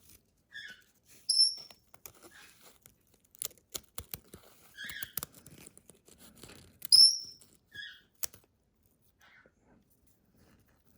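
Pineapple conure giving short, sharp high-pitched chirps, the two loudest about a second in and about seven seconds in, with softer squeaks between. A few sharp clicks from scissors snipping its wing feathers come in the middle and near the end.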